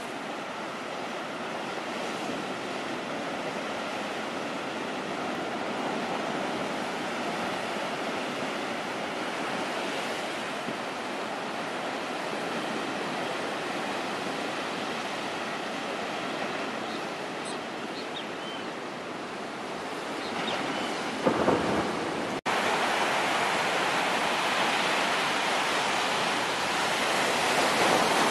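Ocean surf breaking on a sandy beach: a steady rushing wash of waves. About three-quarters of the way through there is a brief louder burst of noise, then a sudden jump to a louder, closer surf.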